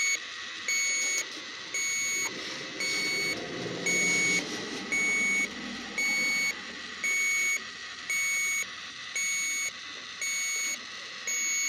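Electronic refrigerant leak detector (sniffer) beeping at an even pace, a little under one and a half short high beeps a second, with some handling rustle around the middle.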